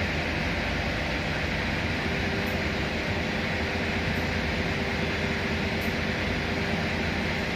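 Steady machinery drone: a low hum with a broad hiss and a few faint steady tones, at an unchanging level.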